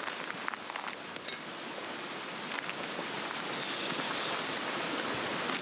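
Swedish torch log fire burning, a steady crackling hiss with a few sharp pops in the first couple of seconds.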